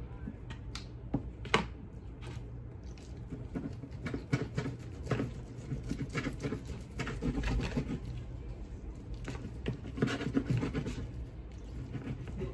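Kitchen handling noise: irregular clicks, light knocks and scraping of cookware and utensils, with one sharper click about a second and a half in.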